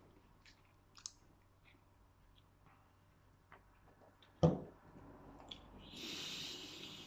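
Small scattered clicks and one sharp knock, then near the end a long breathy hiss of a person vaping, drawing and blowing out vapour.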